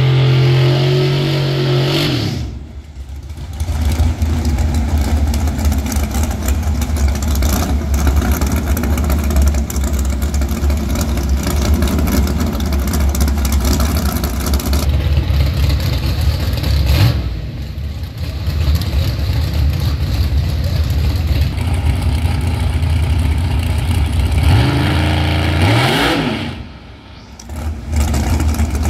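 Drag race car engine running loud with a heavy low rumble, revved up in rising sweeps a couple of times, with short drops in between.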